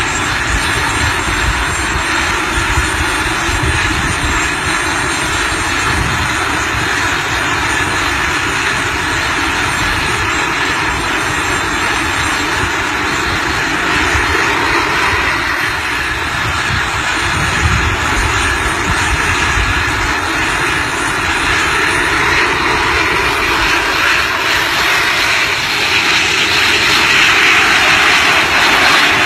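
Steady aircraft engine noise, growing a little louder near the end.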